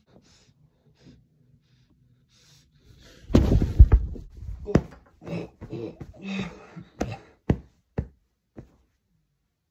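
Handling noise from a phone being moved about against bedding: a loud rumbling rub over the microphone starts about three seconds in, followed by a series of sharp knocks and bumps.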